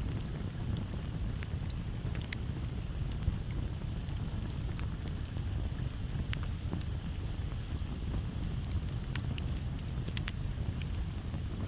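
Campfire crackling, with sharp irregular pops and snaps over a low steady rumble. Crickets chirp steadily in the background.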